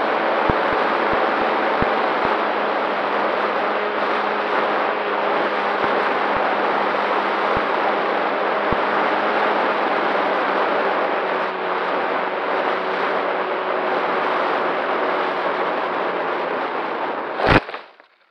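FPV quadcopter's motors and propellers running steadily, heard from its onboard camera as a whine under rushing air. Near the end there is a single sudden thump as it comes down into long grass, and then the sound cuts off.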